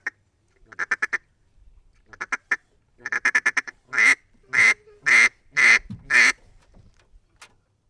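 Duck quacking: three quick runs of short, fast clucks, then five loud, separate quacks about half a second apart.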